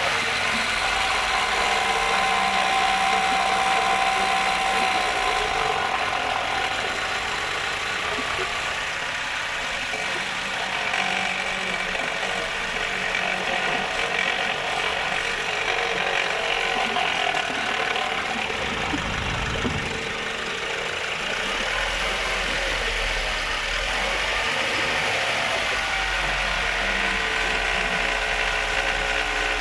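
Nissan YD25 2.5-litre four-cylinder diesel engine of a Nissan NV350 Urvan running steadily with a ratchet-like mechanical clatter: the strange noise the owner is trying to track down.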